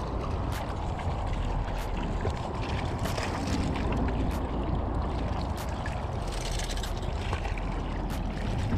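Steady wind on the microphone over water lapping at the rocks, with light sharp clicks about once a second.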